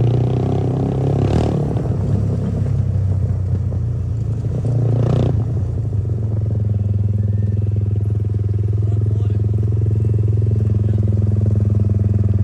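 Motorcycle engine running as the bike rolls in, with a couple of short rattles in the first few seconds, then settling into a steady idle for the second half.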